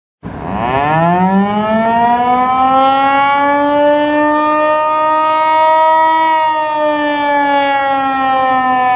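Outdoor warning siren winding up from a low pitch to a steady wail, then slowly sliding back down in pitch over the last few seconds.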